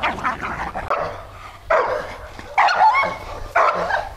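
A dog barking in four loud bursts, roughly a second apart.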